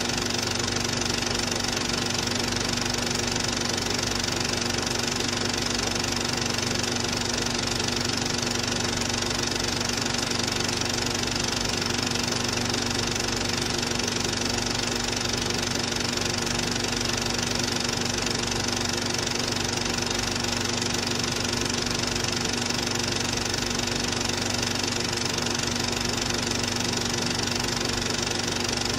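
Cine film projector running steadily: a constant motor hum with the rapid mechanical clatter of the film being driven through the gate.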